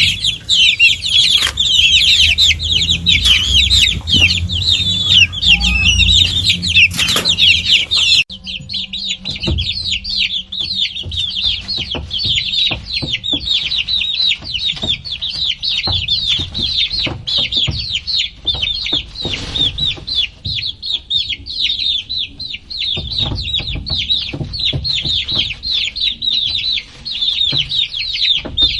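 A crowd of chicks peeping continuously, many short high calls overlapping in a dense chorus. About 8 seconds in the sound cuts to a slightly quieter recording of the same busy peeping.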